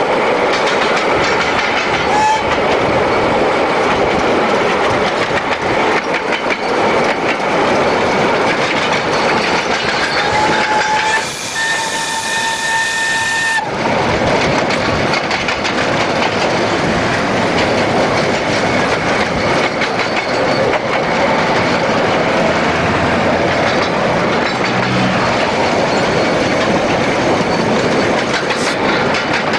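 Narrow-gauge steam locomotive running at speed beside the road, heard from a vehicle pacing it as a loud, steady rushing din. Its whistle gives a short toot about two seconds in and a held blast of about two and a half seconds around the middle.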